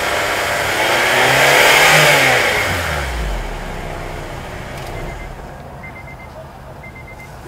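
2008 Acura TSX's 2.4-litre i-VTEC four-cylinder heard at the tailpipe, revved up to a peak about two seconds in, then falling back toward idle as the sound fades out.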